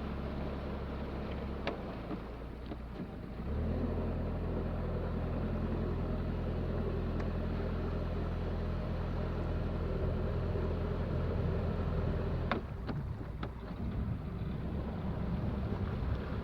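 Narrowboat engine running, throttled up about three and a half seconds in and eased back near the end, with a few sharp clicks.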